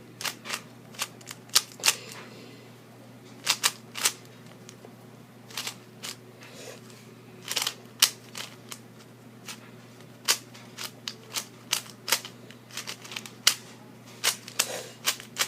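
Plastic ball-shaped speed cube being twisted by hand: sharp, irregular clicks and clacks of the layers turning, in quick clusters with short pauses between them, coming more often in the second half.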